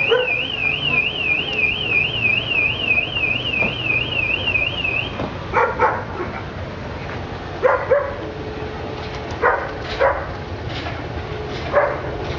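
An electronic warbling alarm, rising and falling about four times a second, sounds for the first five seconds or so and then stops. A few short, loud sounds follow about every two seconds over the low, steady rumble of a train pulling out of the station.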